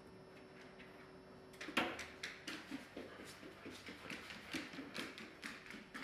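A sharp knock just under two seconds in, then a run of light, irregular clicks and taps, two or three a second, over a faint steady hum.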